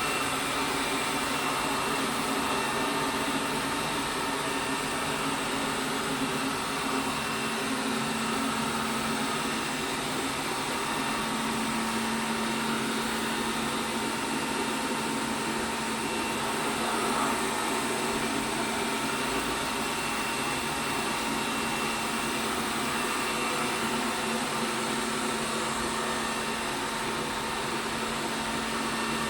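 ELARI SmartBot Lite SBT-002A robot vacuum cleaner running: a steady, even whir with a low hum underneath.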